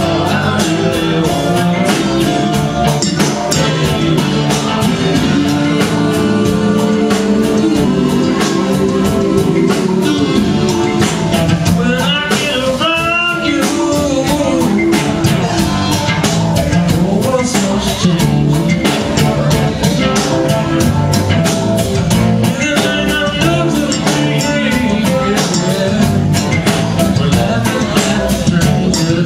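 A live band playing rock-blues on electric guitar, electric bass and drum kit, with a man singing over it.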